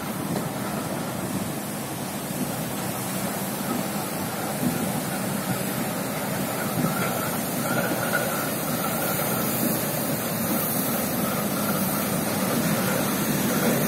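Diesel shunting locomotive rolling slowly over a road level crossing, its engine and wheels running steadily under a wash of noise, getting slightly louder toward the end.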